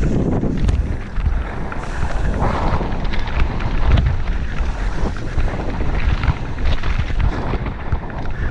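Wind buffeting a helmet-mounted camera's microphone as a mountain bike descends at speed, with a constant low rumble and many sharp clatters and knocks from the tyres and bike over a rocky trail.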